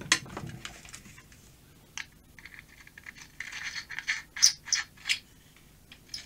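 Hands handling the plastic housing and parts of a desolder gun: scraping and rattling, with a sharp click at the very start and a cluster of sharp clicks about four to five seconds in.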